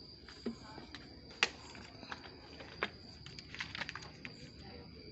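Scattered sharp clicks and knocks of hands working in a car's engine bay, handling plastic caps and parts; the loudest click comes about a second and a half in. A faint steady high tone runs underneath.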